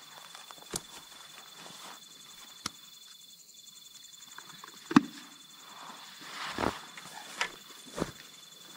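Backpacks and camping gear being handled and set down on grass, with footsteps: a handful of scattered knocks and thumps, the loudest about five seconds in, with rustling around six to seven seconds in.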